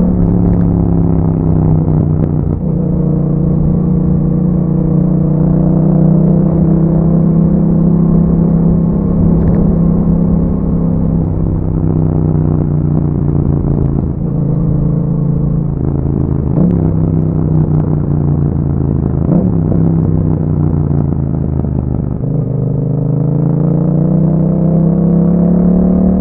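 A 2021 Yamaha MT-07's parallel-twin engine running through an Akrapovic exhaust with a dB killer, under way at fairly steady revs. The revs drop over the first couple of seconds and climb again over the last few seconds as the bike accelerates.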